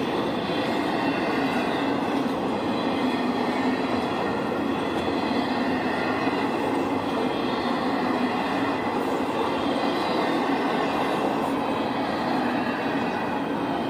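A train rolling steadily along the rails: a continuous, even rumble of wheels on track with a faint high ringing over it.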